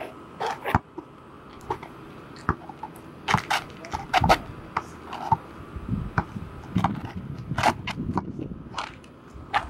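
A basketball being dribbled on an asphalt court, with irregular sharp bounces and sneakers scuffing and scraping on the asphalt as the players move.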